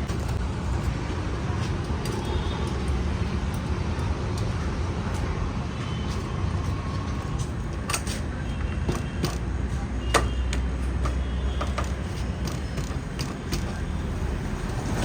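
Steady rumble of road traffic, with a few sharp knocks and clicks from tyre-changing work on the motorcycle wheel. The loudest knock comes about ten seconds in.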